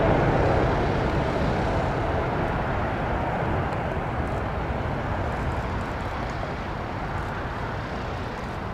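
Four-engined Airbus A380 on short final, a steady jet rumble fading as the airliner moves away over the runway toward touchdown.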